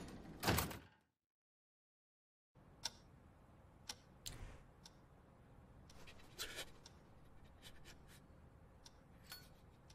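Quiet room tone with a few faint, scattered clicks and taps, and a stretch of dead silence about a second in.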